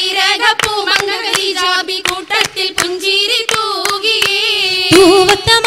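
Oppana: a high voice singing a Malayalam Mappila song, with rhythmic hand claps from the dancers, a few sharp claps a second.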